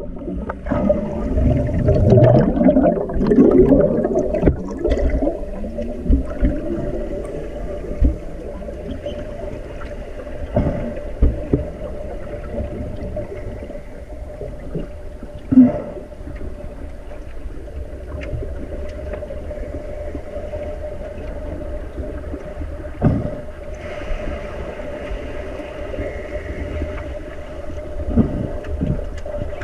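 Underwater sound in a swimming pool during an underwater rugby game, heard through the camera's underwater housing: rushing and gurgling bubbles from the players, loudest in the first few seconds, with a steady hum and scattered sharp knocks and thumps.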